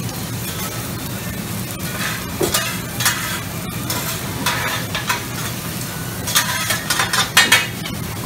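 Food sizzling on a Mongolian barbecue flat-top griddle, with metal spatulas scraping and clanking against the steel cooking surface several times from about two seconds in.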